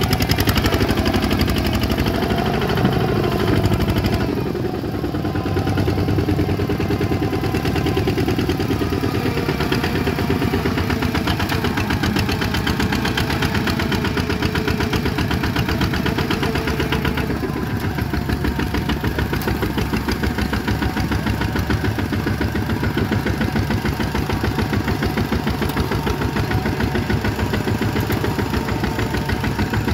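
Two-wheel walking tractor's single-cylinder diesel engine running steadily with a fast, even chugging beat as the tractor is driven through the field. The sound dips briefly about four seconds in and turns a little duller just past halfway.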